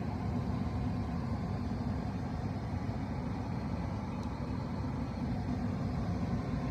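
Steady low rumble of a car driving, road and engine noise with no changes.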